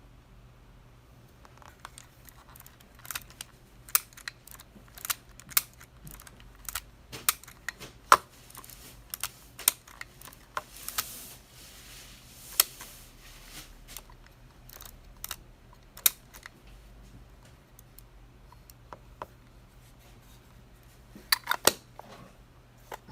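Mechanical clicks of a Yashica Half 17 half-frame film camera being worked by hand: a run of sharp, separate clicks of shutter release and film advance, with a short rasping stretch about eleven seconds in and a quick double click near the end.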